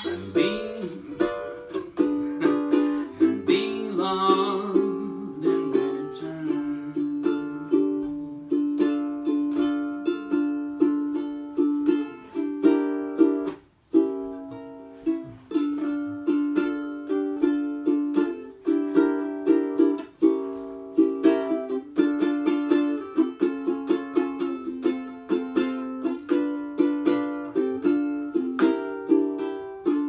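Solo ukulele playing an instrumental passage, plucked notes and chords in a steady rhythm. It breaks off briefly about halfway through.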